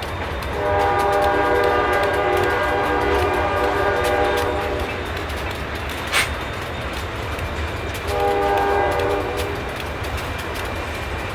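Diesel freight locomotive air horn sounding two blasts: a long one of about four seconds, then a shorter one of about a second and a half. The low, steady rumble of the locomotives' diesel engines runs underneath, and a single sharp click comes between the blasts.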